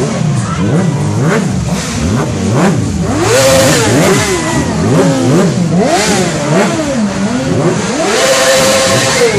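Several sport motorcycles revving their engines in repeated throttle blips as they ride slowly past, the pitch rising and falling over and over. The revs are loudest around three and eight seconds in.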